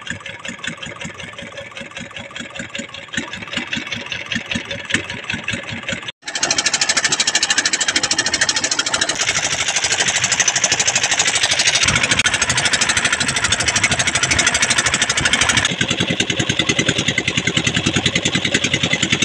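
Boat engine running with a fast, even chugging. It cuts out briefly about six seconds in, then comes back louder.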